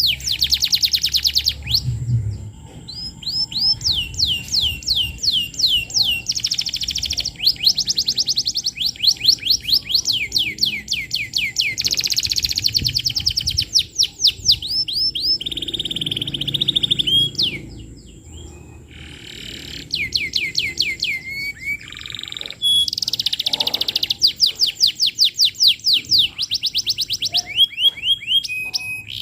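Canary singing continuously in a long, fast song of rapid trills, each made of quickly repeated falling notes, broken by only brief pauses. This is the full, non-stop song of a prolific ('gacor') canary.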